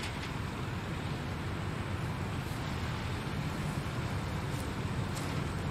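Dump truck's diesel engine running at low speed as the truck slowly pulls in to deliver a load of dirt, a steady low drone.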